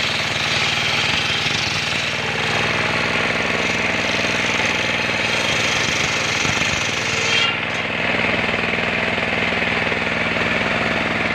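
Motor-driven sawmill saw bench running steadily as timber is fed along the table; about seven and a half seconds in the high hissing part of the sound drops away suddenly while the motor keeps running.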